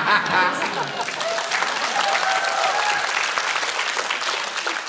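Studio audience applauding a joke, many hands clapping at once, with some voices mixed into the clapping.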